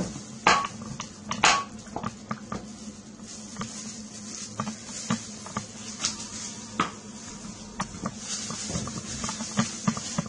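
Kitchen knife pricking holes in raw chicken pieces, with irregular sharp taps and clinks of the blade against the dish, over a faint steady hum.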